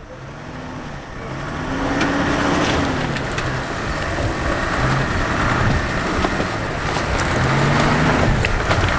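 Classic 4x4 jeep's engine pulling hard up a steep rocky slope in a low gear, its pitch rising and falling as the driver works the throttle, with tyres crunching and grinding over loose stones.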